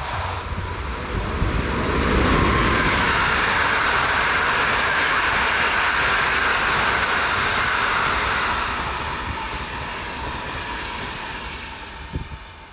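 Train passing: a rushing rail noise that builds over the first two seconds, holds, then fades away from about eight seconds in, with a faint steady whine underneath.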